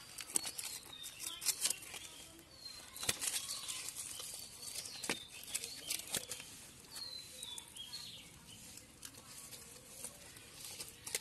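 A fish flapping and slapping on wet mud and dry leaves while it is pulled from its hole and grabbed by hand: a run of irregular sharp slaps and rustles. Faint bird chirps are heard behind it.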